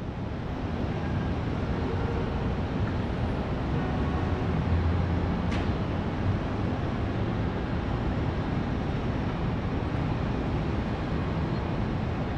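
Street ambience: a steady low rumble of traffic, with a single sharp click about five and a half seconds in.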